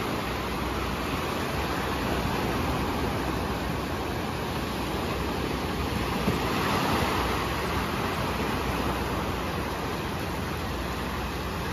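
Small waves breaking and washing up the sand at the water's edge: a steady surf wash that swells a little louder about six seconds in.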